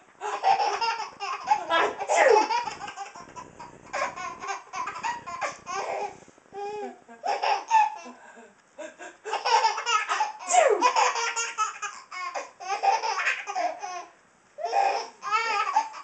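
A baby laughing hysterically at fake sneezes: repeated fits of high, breathy belly laughter, each lasting a second or few, with short pauses between them.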